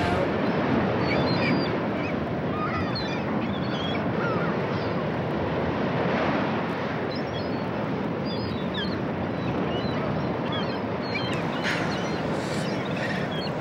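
Surf rushing steadily on a beach, with many short, scattered squeaky calls over it and a brief hiss near the end.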